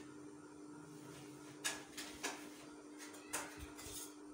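Pencil marking cloth and a steel ruler being shifted on it: a few short taps and scratches over a steady low hum.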